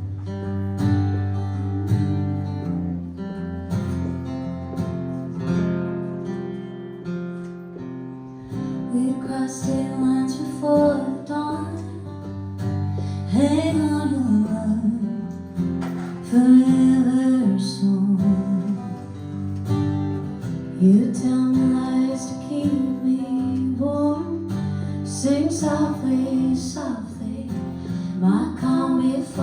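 Live acoustic guitar playing the song's opening chords, with a singing voice coming in about nine seconds in.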